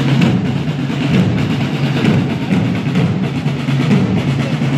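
Medieval-festival parade drums playing a continuous roll.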